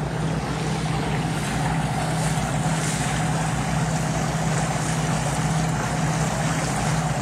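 Motor cruiser's engine running steadily under way, an even hum over a low, regular throb, with a wash of water and wind noise.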